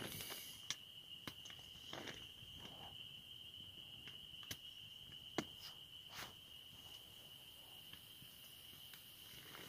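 Faint, steady high-pitched trill of an insect, with scattered soft ticks.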